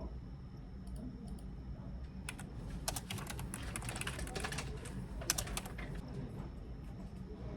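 Fast typing on a computer keyboard: a dense run of keystrokes lasting about three and a half seconds, starting a couple of seconds in, over a steady low hum.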